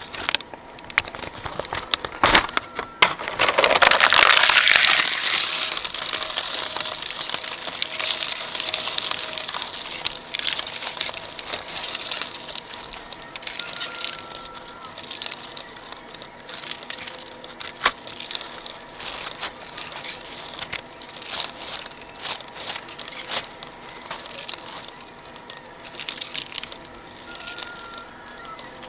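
Shredder chewing through plastic toys and slime, giving a loud grinding burst about four seconds in and then irregular crackling and crunching over a faint steady machine whine.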